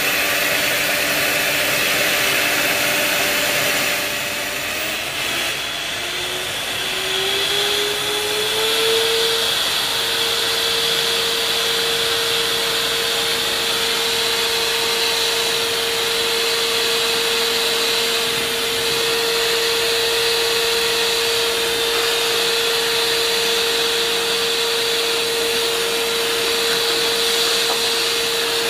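Anex electric hand mixer running with its two beaters whipping cream in a glass bowl: a steady motor whine over a hiss. The whine rises in pitch from about six to nine seconds in, then holds steady.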